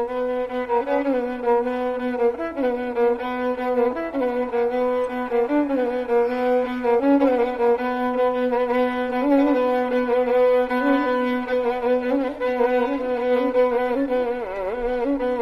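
Background music: a slow melody of long held notes that waver in pitch and slide between notes.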